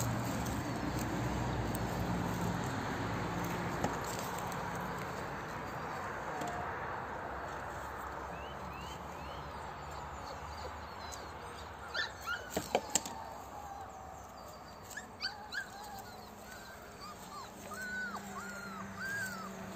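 Six-week-old beagle puppy whimpering and yipping: a few sharp yips about two-thirds of the way in, then a string of short, rising-and-falling whines near the end.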